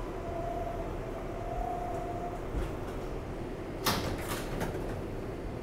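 Interior ride noise of an R188 subway car on the 7 line: a steady low rumble with a faint steady whine for the first couple of seconds. About four seconds in comes a short clatter of sharp clicks and rattles.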